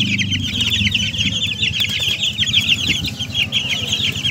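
A flock of young chicks peeping constantly, many short high-pitched cheeps overlapping one another.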